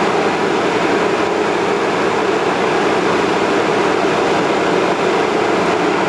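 Winnebago Revel's 13,500 BTU roof-mounted air conditioner running steadily on low cool, its blower fan pushing a loud, even rush of air.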